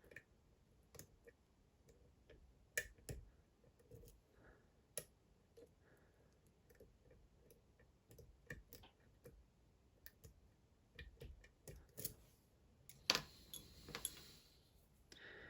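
Faint, irregular clicks of a lock pick and tension tool working the pins of a Dom IX Twinstar lock, with a denser run of clicking and scraping near the end.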